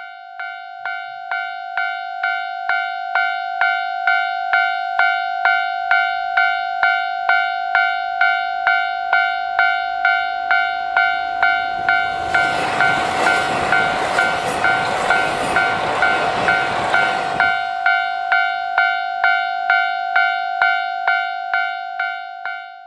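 Railway level-crossing alarm bell ringing at an even pace, about two strikes a second. About halfway through, for some six seconds, a KiHa 261 series 5000 diesel limited express train passes, adding a loud rushing rumble of engines and wheels on the rails.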